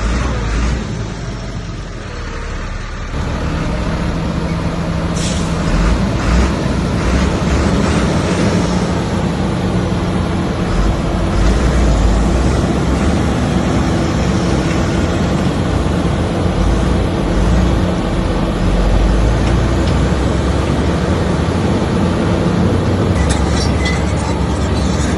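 Heavy diesel engine of a Komatsu bulldozer running steadily under load with a low rumble, growing louder about three seconds in. A run of sharp ticks near the end.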